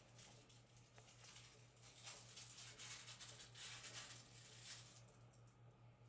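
Near silence: faint scuffling and pattering of Bengal kittens moving about, a little louder through the middle, over a low steady hum.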